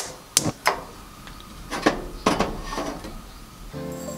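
A series of sharp clicks and knocks from handling things in a kitchen by a gas stove and kettle, some with a short ringing tail. Soft background music comes in near the end.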